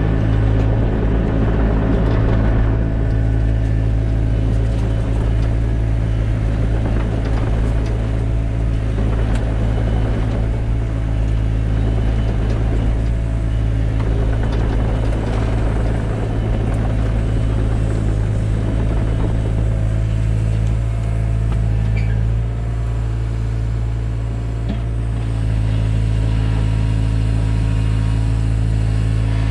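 Takeuchi TB175 excavator's diesel engine running steadily under working load. Its level and pitch dip briefly about three quarters of the way through, then pick back up.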